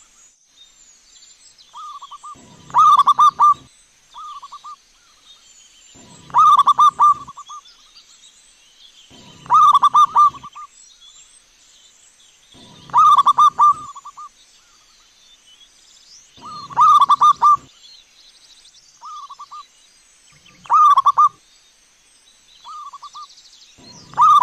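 Zebra dove (perkutut) cooing: a short note, then a loud phrase of rapid rolling notes about a second long. The phrase repeats about every three and a half to four seconds.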